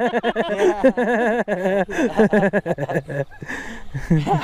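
Men's voices talking close to the microphone, with only a short lull near the end.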